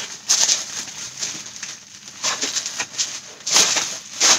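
Bubble wrap crinkling and rustling as it is pulled off a package, in several short bursts, the loudest near the end.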